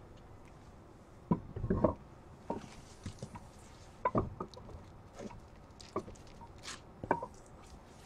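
A handful of light knocks and clicks, irregularly spaced, with the loudest cluster about two seconds in.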